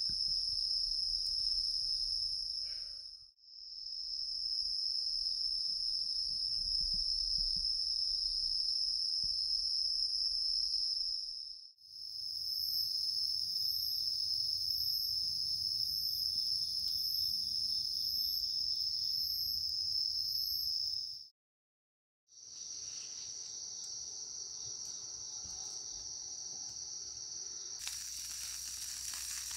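Steady night chorus of crickets and other insects, a continuous high trill that drops out briefly a few times. Near the end, the sizzle of food frying joins in.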